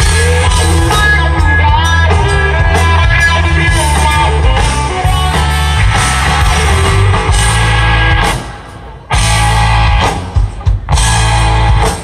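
Live rock band playing over a PA: electric guitar lines over bass and drums. The band stops suddenly about eight seconds in, crashes back in a second later, and plays a few clipped stop-start hits near the end.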